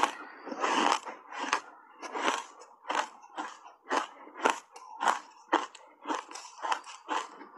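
Ice coated in matcha powder being chewed, a quick run of sharp crunches about three a second.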